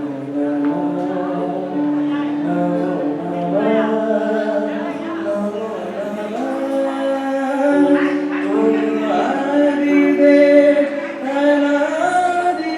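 A group of voices singing a Hindi devotional song (bhajan), holding long notes.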